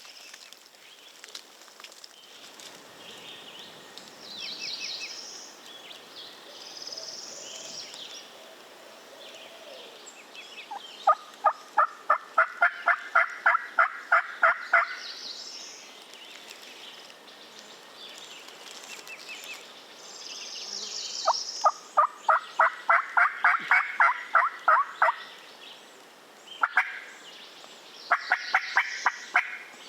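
Wild turkey calling: two long runs of loud, evenly spaced yelps at about four a second, starting about a third of the way in and again about two-thirds in, with shorter runs near the end. Small songbirds sing between them.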